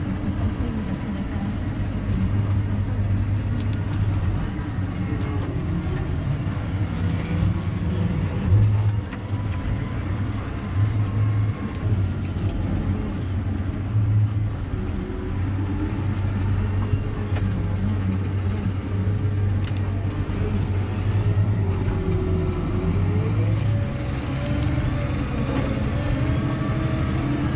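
Large tractor diesel engine running steadily under heavy ploughing load, heard from inside the closed cab: a constant low drone with faint tones above it that waver in pitch.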